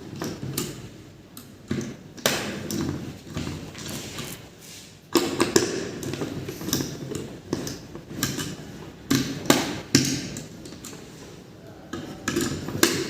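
Irregular clicks, taps and knocks of a screwdriver and metal parts as a CPU cooler is screwed down and pressed onto a desktop motherboard.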